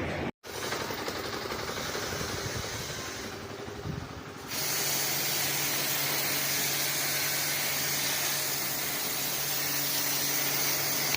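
Air conditioner running with a steady hiss and a low hum; about four seconds in the sound steps up to a louder, even hiss.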